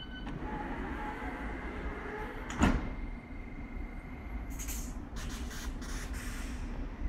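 London Underground District line S7 Stock train's sliding doors closing with one sharp bang about two and a half seconds in, over the train's steady low running rumble. Several short hisses of air follow as the train starts to move off.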